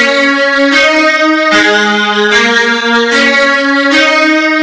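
Music loop of sustained chords, the notes changing about every 0.8 seconds, played by a Scratch project's 'start sound 55' block.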